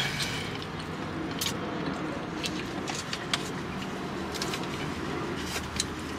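Brown paper takeout bag crinkling in scattered short rustles as a donut is handled and eaten, over a low steady hum inside a car cabin.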